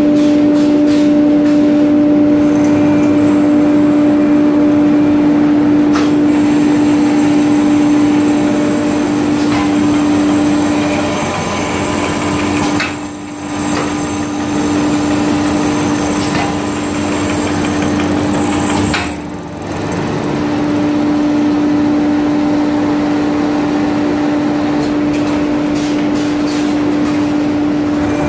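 Automatic twist brush-making machine running: a steady motor hum over the noise of the working mechanism, dipping briefly twice near the middle.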